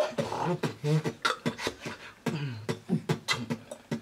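Solo human beatboxing: a quick run of percussive mouth clicks, kicks and snares with short pitched vocal tones between them.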